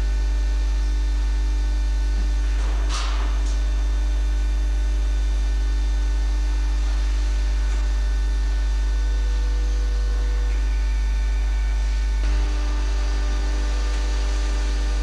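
Steady low electrical hum with several fainter steady tones above it, from the powered-up CNC tool grinder. A short click comes about three seconds in, and a brief knock near twelve seconds, after which the tones shift slightly.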